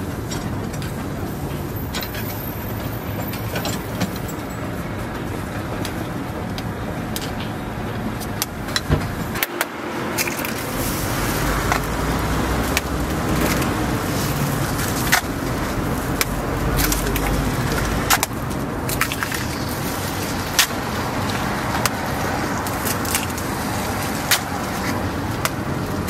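Steady street traffic noise, with sharp clicks and taps now and then as eggs are cracked over the metal egg-bread moulds and dropped into the batter.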